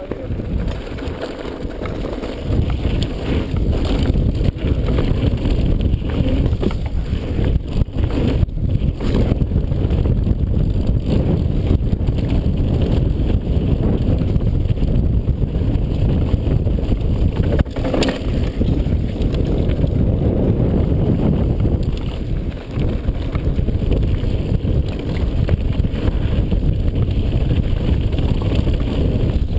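Wind rushing over an action camera's microphone on a fast mountain-bike descent, mixed with the bike's tyres on loose gravel and rattling over bumps, with occasional sharper knocks. Louder from about three seconds in.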